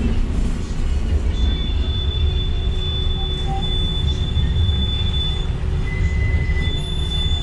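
Tram running, heard from inside the car: a steady low rumble of the running gear with a thin, steady high-pitched squeal that starts about a second in, drops out briefly and comes back near the end.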